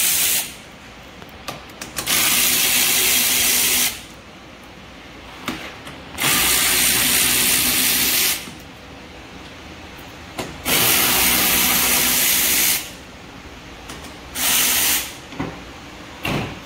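Power ratchet backing out the 8 mm bolts of a generator's front panel, running in bursts of about two seconds. Four full runs of a loud, hissing whir with quiet pauses between, then two shorter blips near the end.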